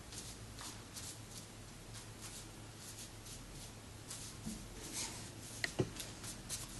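Chinese ink brush dabbing and flicking short strokes onto unsized Xuan rice paper, a soft swish of bristles on paper every fraction of a second, with a couple of small clicks about five and a half seconds in.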